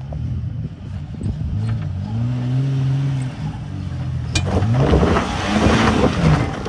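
Jeep Grand Cherokee WJ engine revving under load on a steep rocky climb, its pitch rising and falling. A sharp knock comes about four seconds in, then the tyres spin and throw dirt and gravel while the engine revs up and down.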